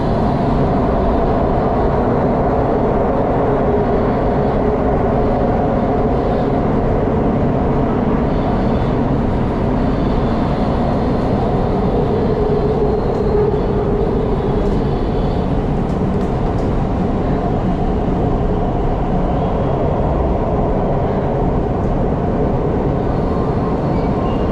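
Changzhou Metro Line 1 train running through a tunnel, heard inside the car: a loud, steady rumble and hiss of wheels on rail with a few faint ticks after the middle.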